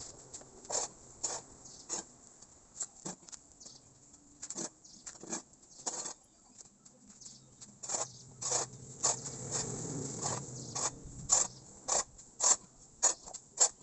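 Chicken manure and dolomite being mixed together, with irregular scraping and crunching strokes, louder and closer together in the second half.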